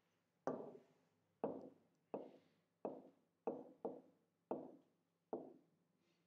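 Pen tapping and knocking against the glass of an interactive touchscreen display while a formula is written: about eight short knocks at irregular intervals, each dying away quickly.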